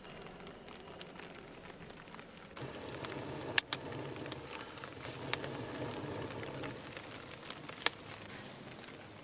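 Wood fire burning in a clay stove's firebox: a soft rushing that grows fuller a little under three seconds in, with a few sharp pops and crackles from the burning wood, about two seconds apart.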